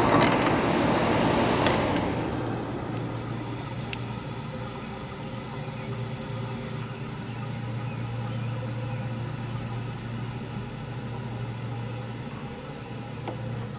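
Fedders AUP05F2K window air conditioner running steadily, its rotary compressor humming low under the even rush of the fan: the unit is charged with R-22 and cooling properly. A louder rush of air fades out about two seconds in.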